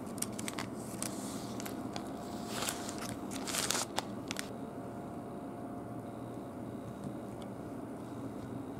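Baking paper crinkling and crackling as it is peeled away from a soft cheesecake, with a few sharp crackles, for about the first four and a half seconds. After that only a steady low background hum remains.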